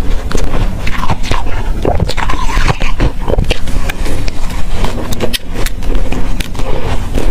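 Close-up crunching and chewing of soft, powdery freezer frost, a dense run of small crisp crackles as it is bitten and chewed.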